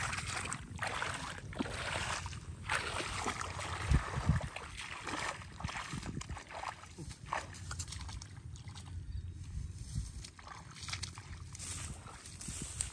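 Shallow muddy water sloshing and splashing in irregular bursts as someone wades barefoot through it.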